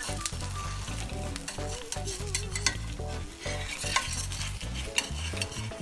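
Jaggery-batter pua sizzling in oil on a tawa. A metal slotted spatula scrapes and clicks against the pan several times as it is worked under the pancake's edge to loosen it for turning.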